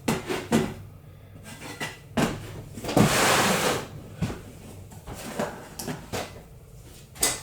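Knocks and clatter of a wooden board and tools being handled in a workshop, with a brief scraping rasp about three seconds in.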